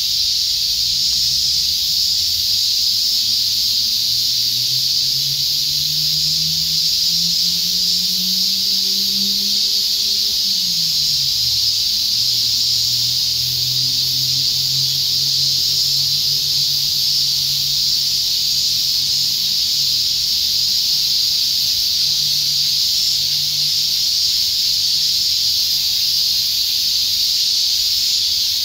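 A steady, loud, high hiss-like drone, typical of a chorus of cicadas. Beneath it a low engine-like hum rises slowly in pitch for about ten seconds, drops, then holds steady.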